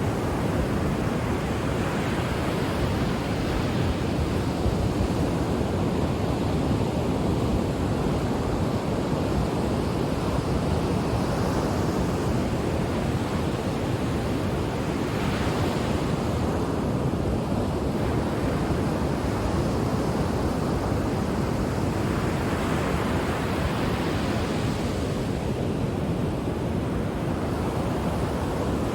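Ocean waves washing onto a shore: a continuous, steady rush of surf, with gentle swells of brighter hiss as waves break every several seconds.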